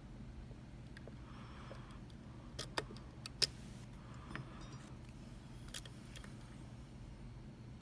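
Small metal clicks and ticks of lock picks and a tension wrench working the pins of a Mul-T-Lock MT5 lock. There is a scattered handful of sharp clicks, the loudest about three and a half seconds in, over a faint steady hum.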